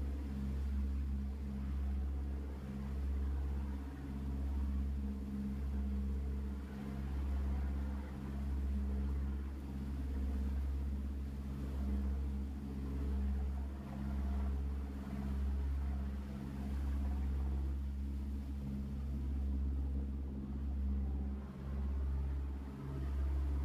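Sightseeing boat's engine running steadily, a low drone that swells and fades about every two seconds.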